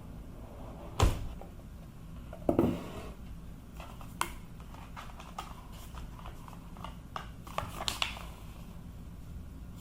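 Household handling noises: a loud knock about a second in, a heavier thump a moment later, then a scatter of light clicks and taps.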